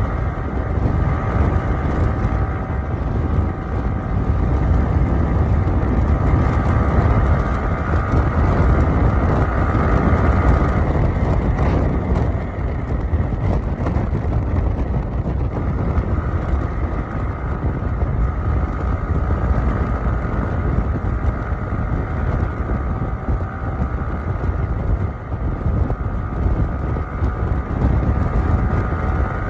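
Sport motorcycle cruising at speed: steady wind rush over the microphone with the engine's even hum underneath. The engine note fades for a few seconds near the middle, then returns.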